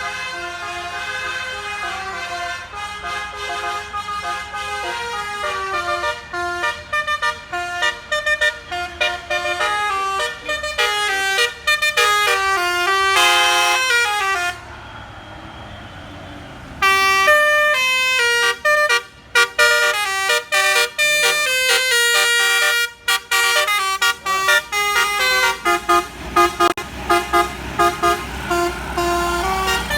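Basuri 'telolet' bus horn, a multi-tone musical air horn, playing quick stepping tunes in short phrases. About halfway through it stops for two seconds, leaving only quieter road noise, then starts again louder. A low engine rumble comes in near the end.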